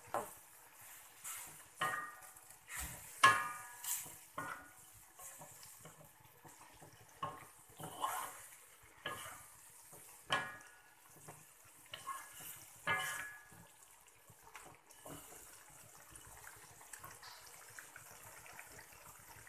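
Wooden spatula stirring wet cassava leaves in an aluminium wok: irregular knocks and scrapes against the metal, some making the wok ring briefly, with the soft slosh of the cooking liquid. The strokes thin out after about fourteen seconds.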